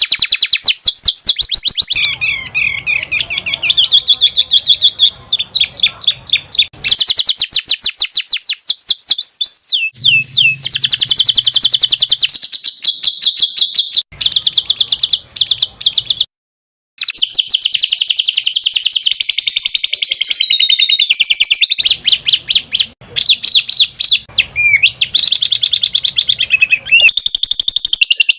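Songbird song: fast, high-pitched trills and rapid runs of repeated chattering notes, loud and nearly continuous, from a masteran recording made for training caged songbirds. It breaks off abruptly for about half a second a little past halfway.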